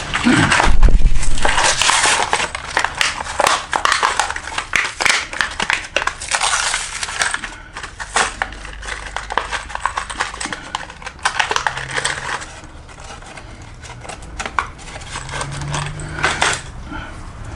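Metal tools and parts clinking, rattling and scraping in quick, dense runs, busiest over the first eight seconds, then sparser clinks with one more burst near the end.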